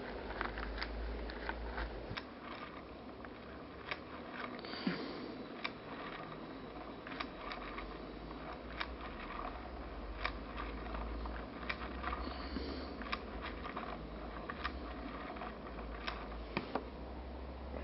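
Small wooden automaton being hand-cranked: its wooden shafts and cams click and knock, with a sharper click about every second and a half.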